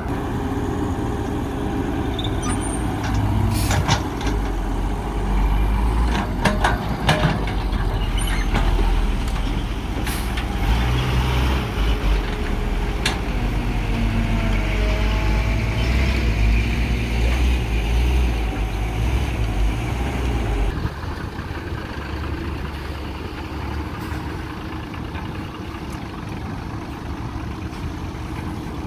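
Cat 312B hydraulic excavator's diesel engine working hard as it digs earth, with several sharp knocks from the bucket in the soil. About two-thirds of the way through, the deep rumble cuts off suddenly and a quieter, steadier engine sound carries on.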